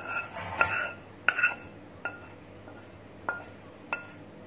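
A spatula scraping cooked oatmeal out of a non-stick pan into a bowl. It knocks against the pan about eight times, each knock ringing briefly, after a short stretch of scraping at the start.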